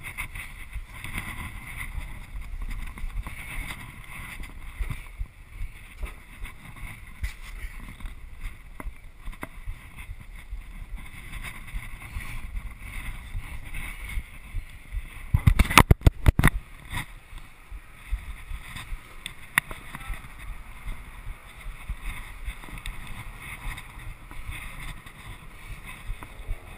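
Wind and handling noise rumbling on a body-worn action camera's microphone, with scattered knocks and scrapes of someone climbing down, and a quick run of loud knocks a little past halfway.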